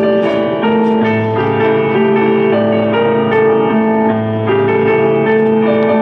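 Instrumental background music led by piano or keyboard, playing held notes and chords that change every second or so.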